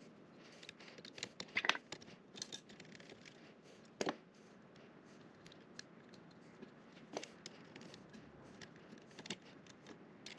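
Faint handling noise: light clicks and rustles as hands route and plug in the white cable on the laser module of a desktop laser engraver. The strongest clicks come just under two seconds in, with another sharp click about four seconds in.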